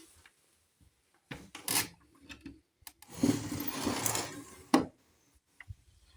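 Rubbing and scraping handling noises in two stretches, with a sharp knock near the end.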